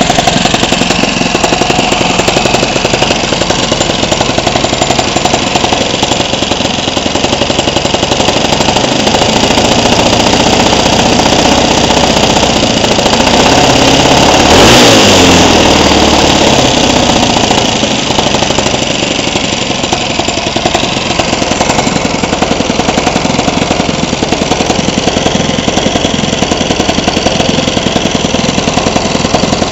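Tuned Honda GX200 single-cylinder four-stroke kart engine idling, revved up once about halfway through, rising in pitch for a few seconds, then falling back to idle.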